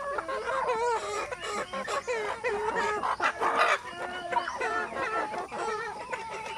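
A flock of free-range chickens clucking, many short calls overlapping, with a rooster crowing among them.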